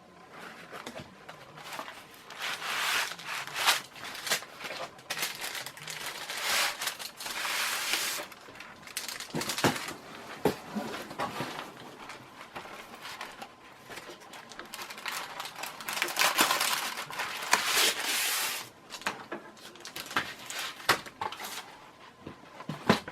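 Paper crinkling and rustling in several long stretches, with scattered light clicks and knocks: ceiling-fan blades being handled and unwrapped from their parchment paper packing.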